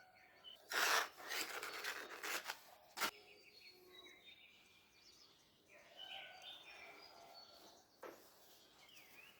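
Hand work on a small part: a couple of seconds of rubbing or scraping, then a sharp click, followed by a few faint bird chirps and another click near the end.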